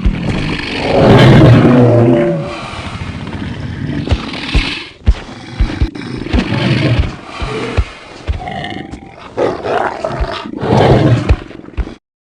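Made-up monster roars and growls for a crocodile-human hybrid creature: a loud roar about a second in, followed by a series of shorter rough growls with short low knocks between them, cutting out briefly just before the end.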